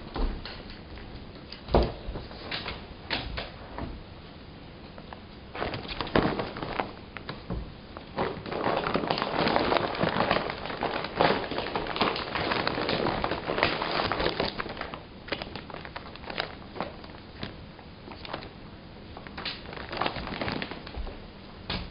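Paper bag crinkling and rustling as cats move about inside it, with scattered sharp crackles and knocks and a busier stretch of continuous rustling in the middle.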